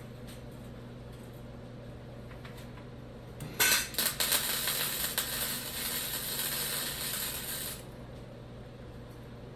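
Arc welder striking an arc about three and a half seconds in and laying a weld for about four seconds with a steady crackling sizzle, then stopping abruptly; a low steady hum runs underneath throughout.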